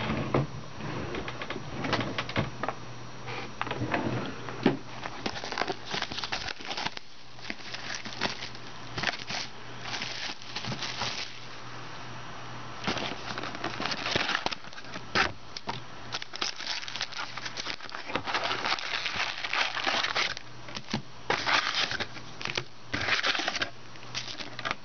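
A sealed trading card box being unwrapped and opened by hand: irregular bursts of crinkling plastic wrapping and rustling cardboard and card packs.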